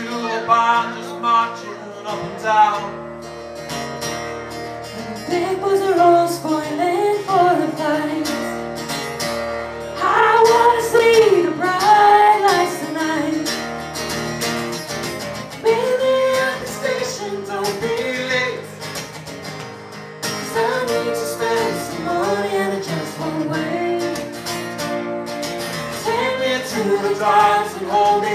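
Live band performing a song: a woman singing the melody over guitar accompaniment.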